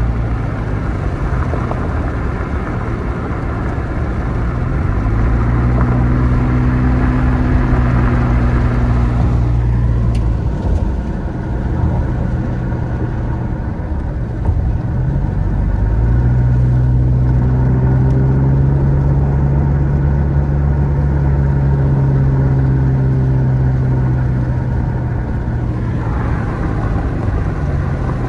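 Car engine and road noise heard from inside the cabin while driving. The engine note dips and climbs again several times, around four, ten, fifteen and twenty-six seconds in.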